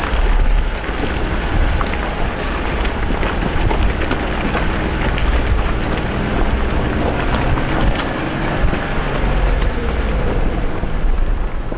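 Jeep driving on a rough trail: a loud, steady rumble and hiss with many small knocks and rattles.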